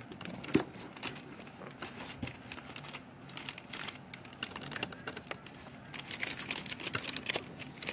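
Scattered light clicks and crinkling of brown paper as a hand scratches a pet rat lying on it in a cardboard box, with a slightly louder tap about half a second in and the clicking thickening near the end.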